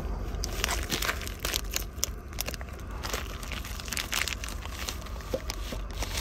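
Plastic noodle packet crinkling and crackling in the hands as it is squeezed, with irregular crackles throughout.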